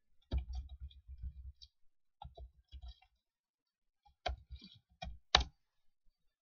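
Computer keyboard being typed on in three short bursts of clicking keystrokes, with one louder keystroke near the end.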